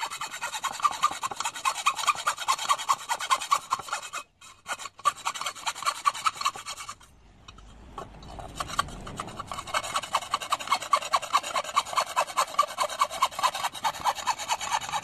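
Hacksaw cutting through a rusty metal bar, quick rhythmic rasping strokes, breaking off briefly about four and seven seconds in before resuming.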